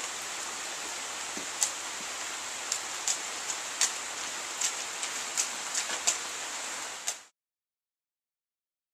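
Steady rain falling on a wet stone patio, an even hiss with scattered sharp ticks. It cuts off to silence about seven seconds in.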